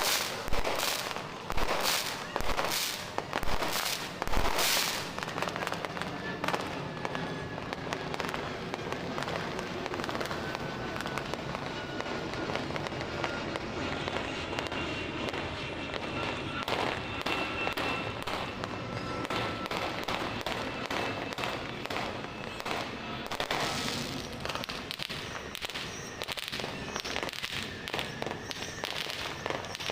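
New Year's fireworks and firecrackers: a quick series of loud bangs in the first few seconds, then steady dense crackling, with bangs picking up again near the end.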